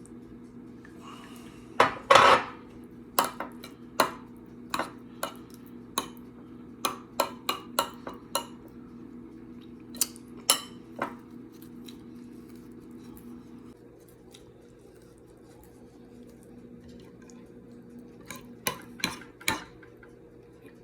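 Cutlery clinking and tapping against a plate while eating: a run of sharp, irregular clicks, a pause, then a few more near the end. A steady low hum runs underneath.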